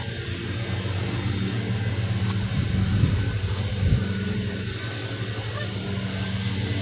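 Steady low hum of a running engine, swelling slightly in the middle.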